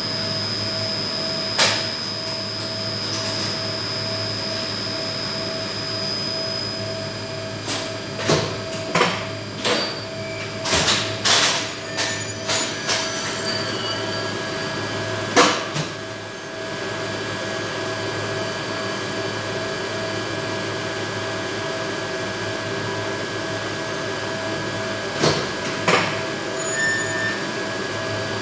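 Steady electric hum and whine of a 1971 Flohr Otis lift's DC gearless hoist machine and its drive in the machine room. Sharp mechanical clacks of the lift's switchgear and brake come in a quick run about eight to thirteen seconds in, once more a couple of seconds later, and twice near the end.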